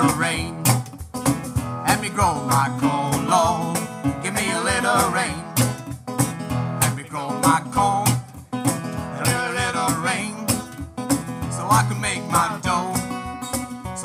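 Live acoustic country-blues: a guitar carries a wavering melody over steady, regular cajón strokes, with no singing.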